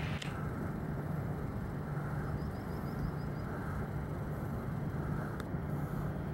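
Steady low rumbling hum of outdoor background noise, with a quick run of about seven faint high chirps a little over two seconds in and a single sharp click near the start and another about five seconds in.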